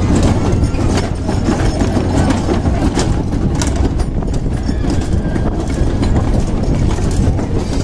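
Kiddie fire-truck carousel turning: a loud steady rumble with irregular clattering and knocks from the running ride.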